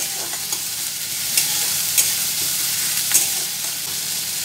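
Chopped onions sizzling in hot mustard oil in a steel kadai, frying toward golden-red, while a spatula stirs them and scrapes against the pan, clicking sharply three times.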